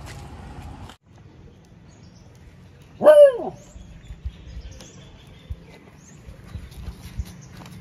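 A single short animal call, about half a second long, that rises and falls in pitch, about three seconds in. Around it are light knocks from fibreglass tent poles being handled.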